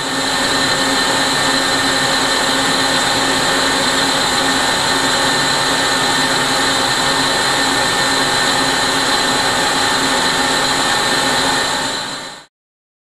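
Citizen Cincom A20 VII Swiss-type CNC lathe running: a steady whir and hiss with several high whining tones. It fades in at the start and stops shortly before the end.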